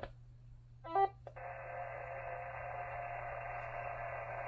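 Xiegu G90 HF transceiver powering up: a click, a short electronic beep about a second in, then its receiver audio comes on as a steady hiss from the speaker, over a low constant hum.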